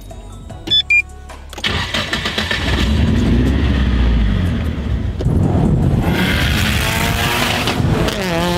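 Nissan Silvia S15 Spec R's built SR20 four-cylinder with a high-mount turbo, started with the key. A few short electronic beeps come first; the engine cranks and catches about two seconds in and runs. Near the end its pitch rises a little as it revs.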